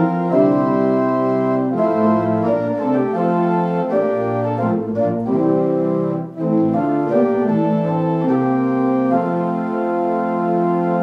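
Organ playing a slow hymn in sustained chords, with a brief break between phrases about six seconds in and a final chord held from about nine seconds on.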